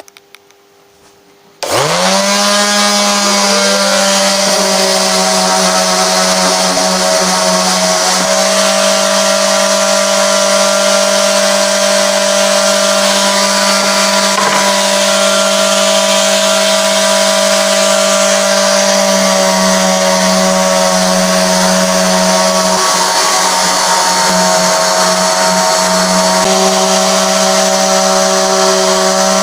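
Electric sander starting up about two seconds in, its motor rising quickly to speed, then running steadily as it sands a solid-wood guitar body with 240-grit paper.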